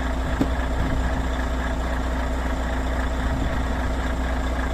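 Volvo truck's diesel engine idling steadily with a low hum.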